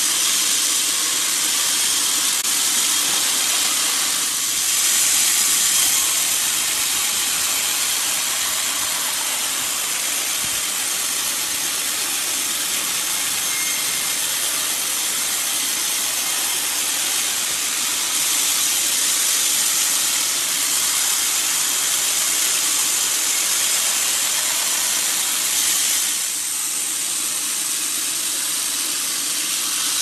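Band sawmill blade cutting lengthwise through a log, a steady high hiss that swells briefly a few seconds in and dips near the end.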